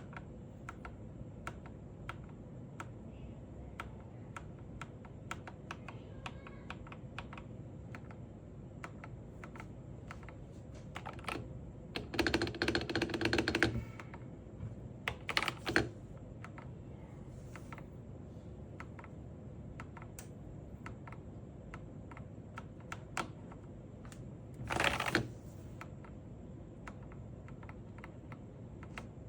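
Typing on a Machenike KT68 68-key mechanical keyboard: scattered separate keystroke clicks, with louder, denser runs of keystrokes about twelve seconds in, briefly near fifteen seconds and again near twenty-five seconds.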